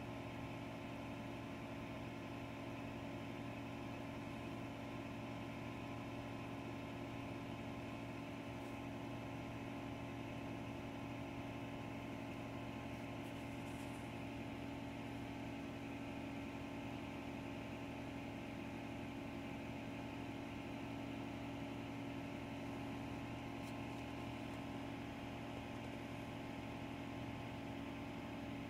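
Steady motor hum from aquarium equipment, holding one unchanging pitch with a few faint ticks in the middle and later on.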